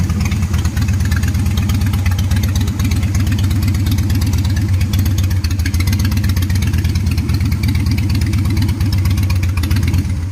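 Harley-Davidson motorcycle's V-twin engine idling steadily with an even, low-pitched beat.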